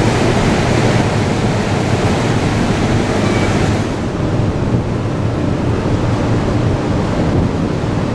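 Large car ferry's engines humming over the rush of water churned up by its propellers as it berths, with wind buffeting the microphone; the hiss of wind and water eases about four seconds in.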